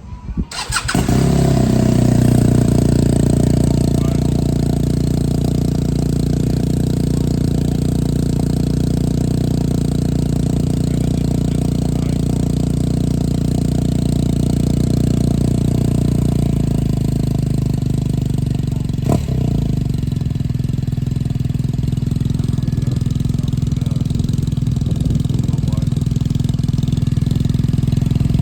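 BMW R1250RS boxer-twin engine breathing through an LCI Parts aftermarket performance exhaust, starting up and catching within the first second, then idling steadily with a low-pitched exhaust note. A brief click sounds about two-thirds of the way through.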